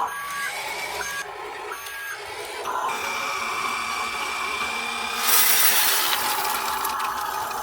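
Small electric motors and gearboxes of a radio-controlled construction model whining in short steady stretches. From about five seconds in, a louder gritty rushing scrape takes over.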